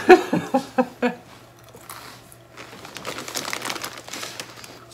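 A short run of quick laughs in the first second, then the rustle and crinkle of a plastic snack bag of shoestring potato sticks being handled.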